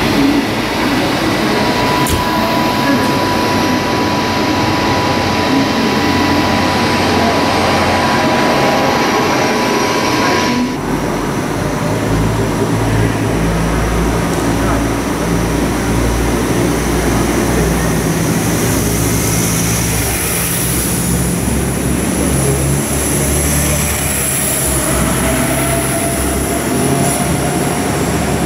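Station noise with a steady thin whine from a train at the platform. Then an Alstom Coradia LINT 54 (Class 622) diesel railcar rolls into the station with a low, steady engine drone, and a high squeal comes in near the end as it slows.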